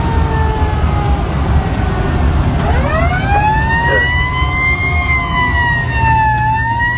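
Fire engine siren heard from inside the cab. A falling tone dies away in the first second, then about three seconds in the siren winds up in a rising glide and holds a high, wavering wail that dips briefly near the end. Under it runs the steady low rumble of the truck's engine and road noise.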